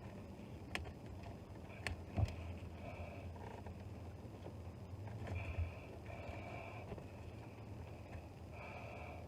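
Faint clicks and handling noise of a wire stripper worked on the ends of car wiring, the sharpest click about two seconds in, over a low steady hum.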